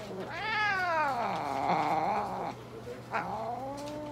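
A long-haired Western-mix cat yowling: two long drawn-out calls, each rising and then falling in pitch, the first the louder and the second starting about three seconds in.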